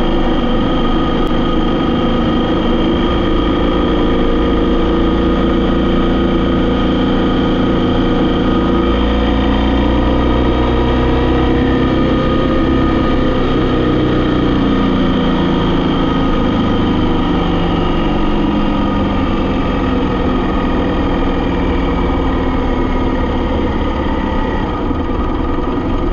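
A vehicle engine running steadily under way, its note dipping and rising again around the middle.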